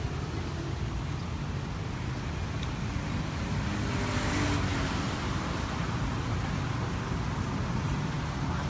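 Steady rumble of road traffic, swelling briefly about four seconds in.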